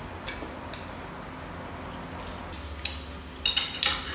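Wooden chopsticks clicking against a porcelain sauce bowl and plate: a couple of light taps, then a quick cluster of clicks near the end as they are laid down on the plate.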